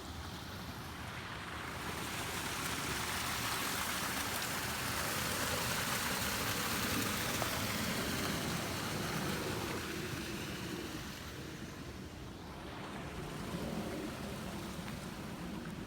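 Rushing water from a small waterfall, a steady hiss that swells for several seconds in the middle and then eases.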